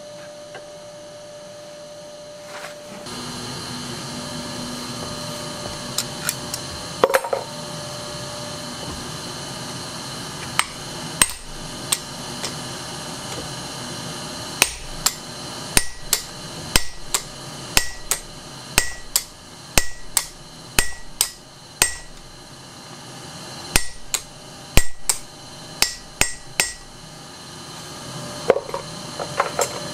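Hand hammer striking red-hot steel on an anvil while forging a carving gouge. The blows come irregularly, often in quick pairs, about one or two a second, starting about six seconds in, and each rings briefly. A steady rushing noise runs underneath.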